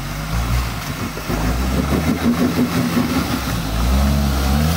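Off-road 4x4 truck engine running, its pitch rising and falling as it is revved.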